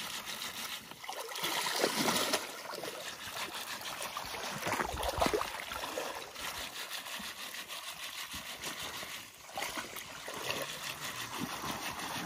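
Water sloshing and splashing in uneven surges as a wire-mesh basket of small fish is swished back and forth in shallow water, rinsing the scales off the fish.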